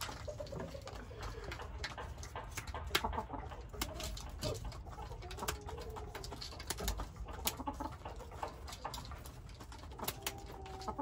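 Chickens giving low, drawn-out coos and soft murmurs, with a few sharp clicks as scissors snip a hen's wing flight feathers.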